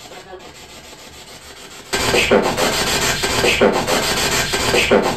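Spirit box radio sweeping through stations: a loud hiss of static that jumps up about two seconds in, with three short voice-like fragments just over a second apart, which the investigators take for a spirit saying "hey sugarfoot".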